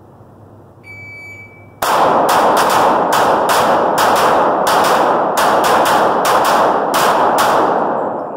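A short steady electronic start beep about a second in, then two pistols, a 9 mm Glock 19 and a .45 ACP, firing rapid overlapping shots for about six seconds, with the echoes running together. The firing tails off near the end.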